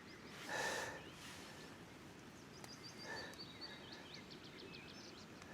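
A small bird singing a quick run of short high notes over quiet outdoor background noise, with a brief soft burst of noise about half a second in.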